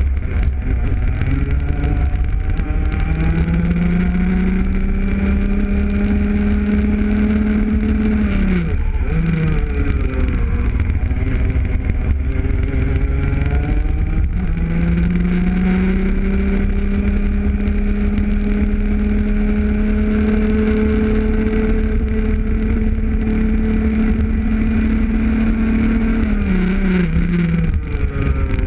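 Rotax Junior kart's 125 cc two-stroke single-cylinder engine heard onboard at race pace: it winds up and holds high along a straight, drops sharply about eight seconds in as the kart slows for a corner, then winds up again from about fourteen seconds and falls off once more near the end. A heavy low rumble runs underneath.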